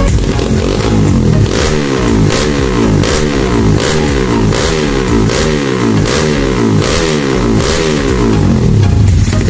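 Single-cylinder Kawasaki KLX 150 engine in a custom motorcycle revved over and over, its pitch climbing and dropping back about every 0.7 seconds.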